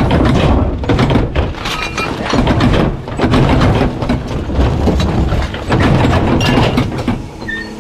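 Rear-loader garbage truck's packer blade crushing trash in the hopper, a dense run of cracking and crunching over a low mechanical rumble.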